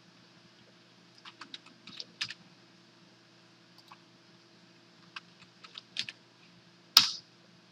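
Computer keyboard typing: a quick run of keystrokes a little over a second in, another run about five to six seconds in, then one louder click about seven seconds in.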